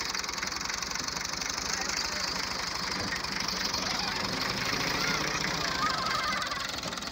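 Small diesel tractor engine running steadily with a crackly, rattling clatter while its tipping trolley is raised.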